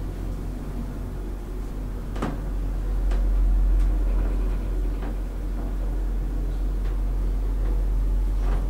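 1997 KONE hydraulic elevator car in travel: a steady low hum and rumble of the ride, swelling slightly partway through. About five sharp clicks fall at scattered moments.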